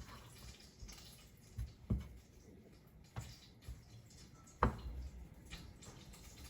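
A few soft, scattered taps and knocks, the loudest about two thirds of the way in: food and dishes being handled on a kitchen counter.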